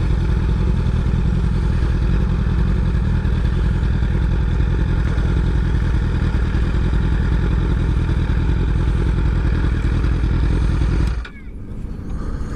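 Honda CBR1000RR's inline-four engine idling steadily, then shut off about eleven seconds in.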